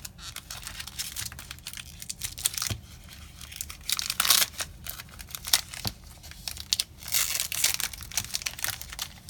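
Foil booster pack wrapper being torn open and crinkled by hand, a run of crackles with louder bursts of tearing about four seconds in and again around seven to eight seconds.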